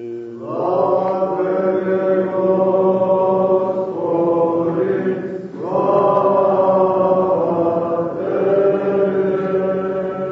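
Orthodox liturgical chant: voices singing long held notes in about four phrases, with a short break about five seconds in.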